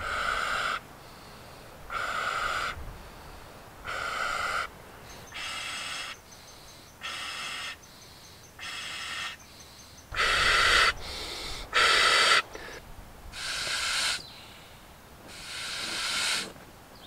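A person inflating an air mattress by mouth: about ten long puffs of air blown into the valve, roughly every second and a half with breaths taken between. Each puff is airy, and many carry a steady whistling note.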